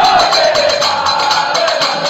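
A group of men singing a Holi dhamal devotional song in unison, voices rising and falling together, over a fast, steady percussion beat.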